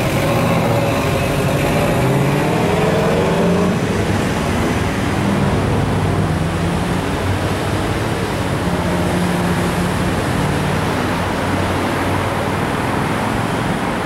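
Street traffic from cars passing slowly in a line: a steady mix of engine hum and tyre noise, with an engine tone falling in pitch over the first few seconds as a vehicle goes by.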